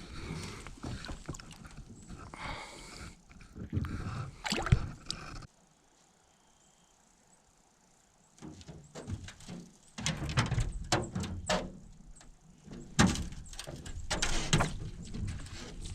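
Knocks, thumps and rattling of handling gear in a small aluminum fishing boat, with a few seconds of near silence about a third of the way in.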